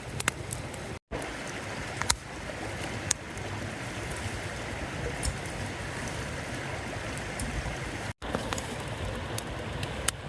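Wood fire crackling in a fire pit: a steady hiss with frequent sharp pops and snaps.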